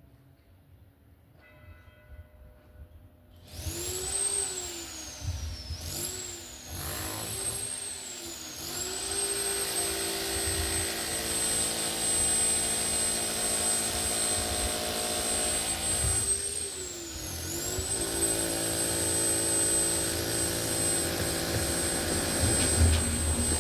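Outdoor civil-defence warning siren sounding for its monthly test. It starts about three and a half seconds in, swoops down and back up in pitch a few times, then holds a steady tone, with one more dip and recovery midway.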